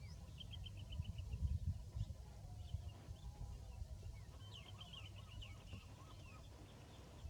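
Small birds chirping in quick runs of short, high notes, twice, over a steady low rumble.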